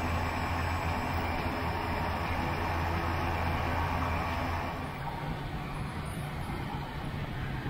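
Geiger HPD20 electric motor and propeller of an Aeros ANT nanotrike running in flight, a steady low hum with the rush of airflow. The low hum fades out about five seconds in and the sound gets a little quieter.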